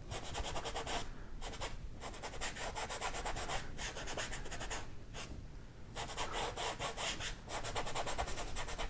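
Paintbrush scrubbing acrylic paint onto a canvas in quick, irregular back-and-forth strokes (scumbling), a dry scratchy rubbing with a brief lull about five seconds in.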